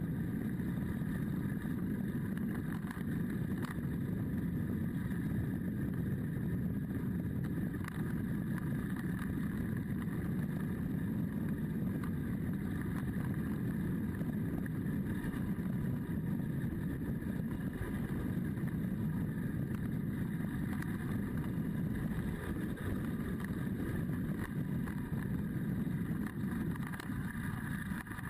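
Adventure motorcycle engine running at a steady cruising pace, heard from a camera mounted on the bike, with a constant low rumble of wind and road noise mixed in. No revving up or down.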